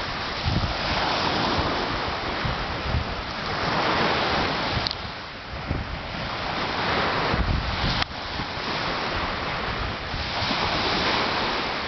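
Ocean surf breaking and washing up the sand, swelling and easing, with wind buffeting the microphone in low gusts.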